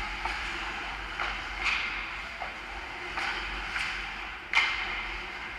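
Ice hockey play near the goal: a steady scrape of skate blades on the ice, cut by about seven sharp clacks of sticks and puck, the loudest about four and a half seconds in.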